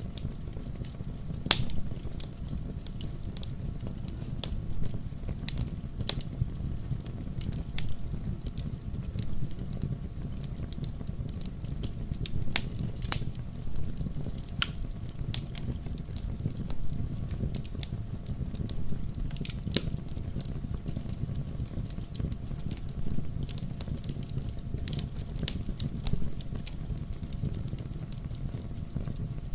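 Wood bonfire crackling, with irregular sharp pops, a few louder than the rest, over a steady low rumble.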